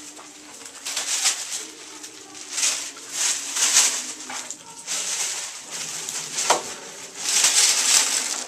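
Plastic bags and wrappings rustling and crinkling as they are handled, in irregular bursts, with a sharp click about six and a half seconds in.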